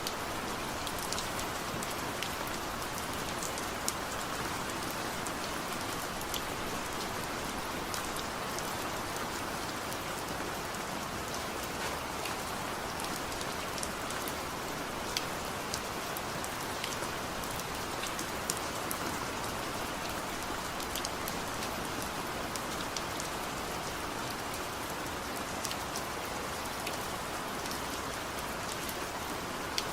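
Steady rain falling on a surface, an even hiss with many scattered individual drop ticks and no thunder.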